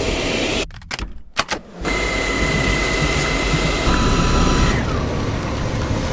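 Dyson cordless stick vacuum running: a steady rush of air with a high whine over it. The sound drops out briefly about a second in, with a few clicks, then the vacuum runs again.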